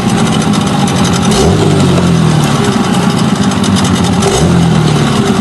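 Hangkai 9.9 outboard motor running, revved up sharply and let fall back twice: a throttle-blip test for the coughing on sudden throttle release that this motor had out of the box, after its ignition and linkage were tuned by ear.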